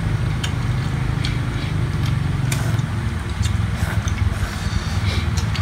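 Electric fan running with a steady low hum, under scattered light clicks of chopsticks and spoons against bowls.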